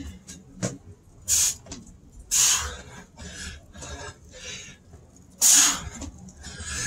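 A man's hard, hissing breaths out through the mouth during burpee push-ups: three loud ones about one and a half, two and a half and five and a half seconds in, with quieter breaths between. A short knock on the concrete floor comes under a second in.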